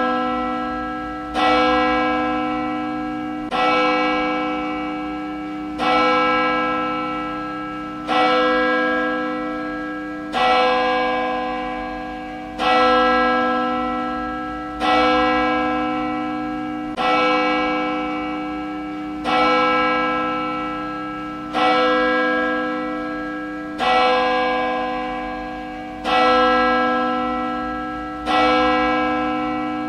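A single church bell tolling steadily, struck about once every two seconds, each stroke ringing on and fading away into the next.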